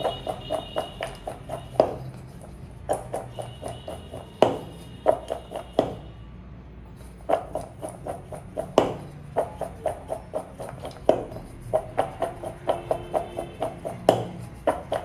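Raw potato strips dusted in cornstarch being tossed and shaken in a metal mixing bowl: runs of quick soft taps, several a second, broken by a louder knock every second or two, with a short lull about halfway through.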